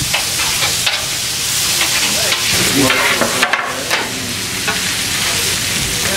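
Steaks, burgers and onions sizzling steadily on the rolled-steel top of a Blackstone 36-inch griddle, with short scrapes and taps of a metal spatula as the meat is lifted.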